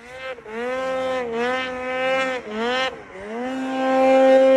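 Two-stroke mountain snowmobile engine revving up and down in quick throttle blips, about two a second, while riding in deep powder. Near the end it climbs to a steady high rev and holds there.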